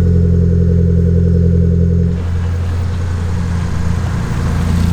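Mitsubishi Lancer's 4G15 four-cylinder engine idling just after a cold start. The running is steady, and its note drops and gets slightly quieter about two seconds in.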